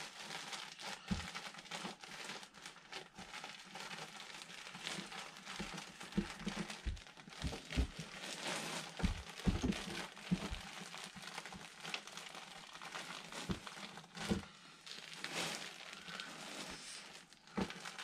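Crinkling and rustling of fiberglass insulation being wrapped around a metal dryer vent duct by hand, with scattered soft knocks.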